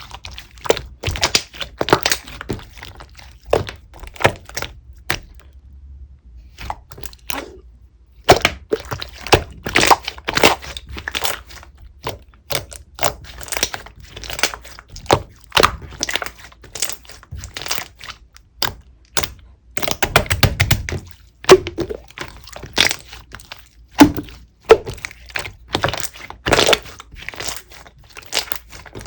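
Clear slime being pressed, folded and stretched by hand, giving an irregular run of sharp clicks, pops and wet squelches as air pockets in it burst.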